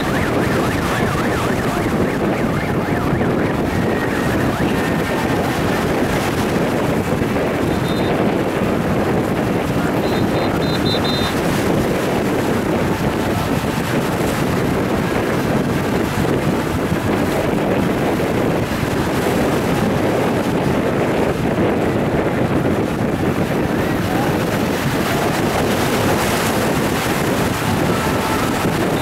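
Steady rushing noise of wind buffeting the microphone over the sea, with water washing beneath it. A few faint, short high pips sound about 8 and 10 seconds in.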